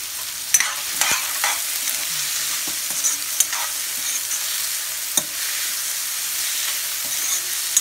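Chopped onion, capsicum and tomato sizzling in oil in a kadai while a steel spoon stirs them, with a steady hiss and sharp clinks and scrapes of the spoon against the pan now and then.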